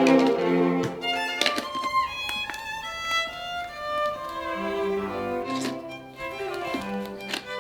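Background music led by bowed strings, violin to the fore, with a few short sharp sounds laid over it about a second and a half in and twice near the end.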